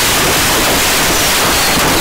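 Fireworks going off: a loud, steady rushing hiss with a couple of faint falling whistles.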